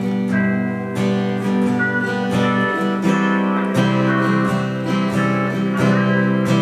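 Acoustic guitar strummed, playing a slow chord progression with the chord changing every second or two.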